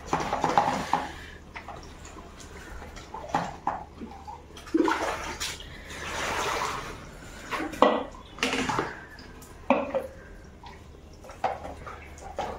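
Hands splashing and swishing artificial flowers in a plastic basin of soapy water, with water poured over them from a mug about six seconds in.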